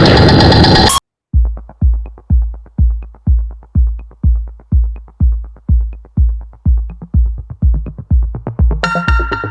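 Electronic background music with a steady kick-drum beat, about two beats a second, starting abruptly after a loud, steady noise cuts off about a second in; synth notes join near the end.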